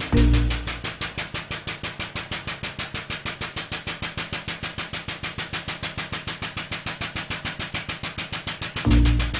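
Air-powered hydraulic pump of a pneumatic coil spring compressor chattering in rapid, even pulses as it raises the ram to compress the strut spring. Background music plays under it.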